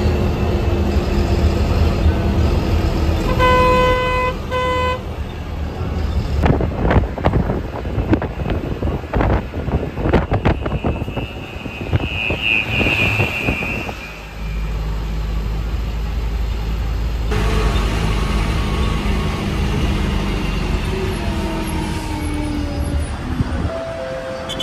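Bus engine running with road noise. A vehicle horn sounds twice in short honks about three and a half seconds in, and a run of clattering knocks follows.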